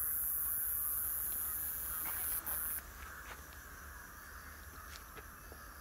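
Flock of white egret-like birds calling with scattered short, harsh calls. Under them runs a loud, steady high hiss that cuts off suddenly about three seconds in.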